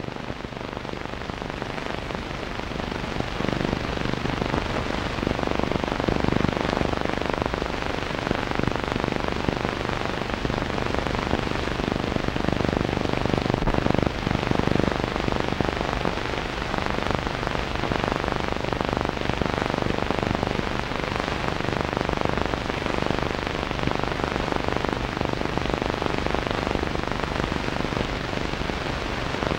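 Surface noise of an old optical film soundtrack playing with no program sound: a steady hiss with dense crackling, over a faint low hum.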